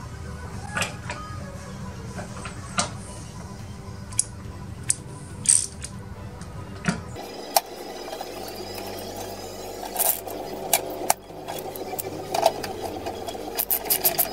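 Scattered sharp clicks and knocks of a hand tool and metal fasteners as lawn-tractor seat springs are fitted and fastened. The clicks come more thickly in the last few seconds, and a low steady hum underneath stops abruptly about seven seconds in.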